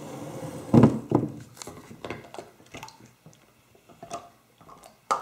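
Plastic toy submarine and figure clicking and knocking against a glass bowl of water while being handled, with small splashes of water. The loudest knocks come about a second in.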